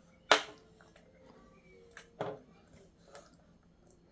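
Short, sharp clicks and mouth sounds of a small child eating, the loudest a single sharp click about a third of a second in, with a few softer ones around two and three seconds.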